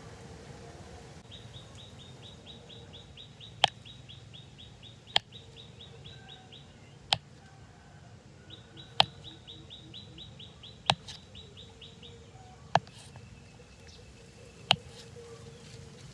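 A bird trilling in two runs of rapid high chirps, each a few seconds long. Sharp clicks come at an even pace of about one every two seconds.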